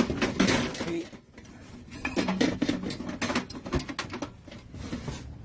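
Gloved hands handling and turning over a discarded metal hanging lamp with brass fittings in a plastic tray: irregular rustling, scraping and light metallic clattering.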